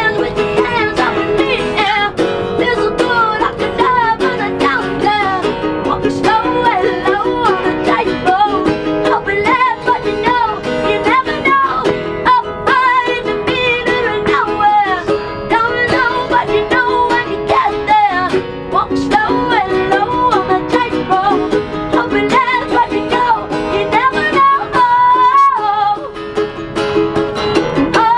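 A woman singing to a strummed ukulele and an acoustic guitar, in a live two-person acoustic performance. The voice carries the melody in phrases over the steady strumming.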